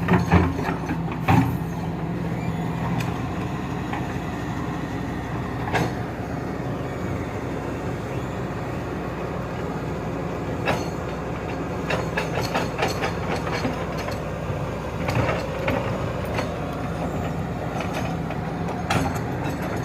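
Excavator's diesel engine running steadily, with scattered metallic clanks and knocks, a few near the start and a cluster in the second half.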